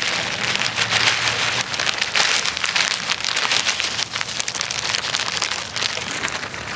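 Crumbled cornbread shaken out of a plastic bag onto grass: a dense, crackly patter of crumbs falling, mixed with the bag rustling.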